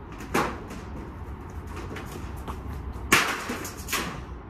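A parkour run-up and jump: sneakers striking concrete and brick, with a sharp step near the start, a few light footfalls, then two loud shoe impacts about three and four seconds in as he plants and pushes off the wall. A steady low city rumble runs underneath.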